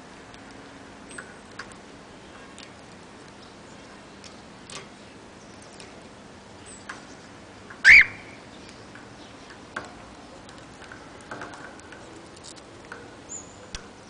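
Cockatiel beak pecking and chewing at a toy in a wire cage: scattered light clicks and taps, with one much louder sharp snap about eight seconds in.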